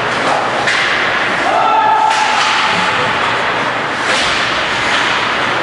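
Ice hockey game in an arena: a steady wash of skating and rink noise with sharp knocks about a second in, around two seconds and around four seconds, and a short shout just before the second knock.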